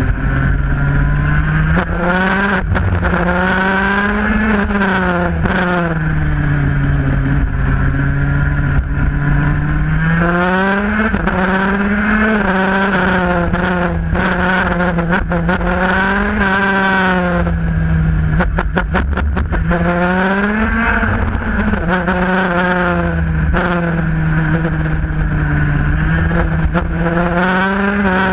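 IAME Parilla 125cc KZ shifter kart's two-stroke engine heard on board at racing speed. It revs up and falls back over and over as the kart accelerates out of corners and brakes into the next. A quick run of sharp clicks comes about two-thirds of the way through.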